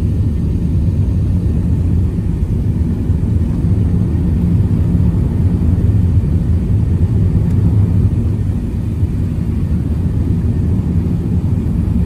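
Jet airliner cabin noise beside the wing: the turbofan engines and airflow make a steady low rumble.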